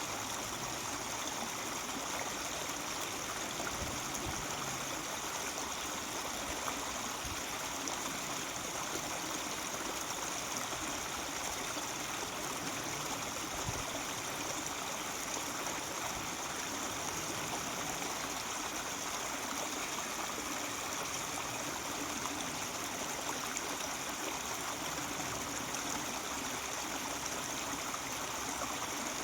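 Mountain stream flowing over rocks: a steady babble of running water.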